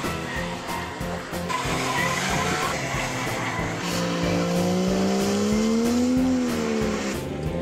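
A drift car's engine held at high revs with tyres squealing as it slides; about halfway through the engine note climbs, then falls away near the end.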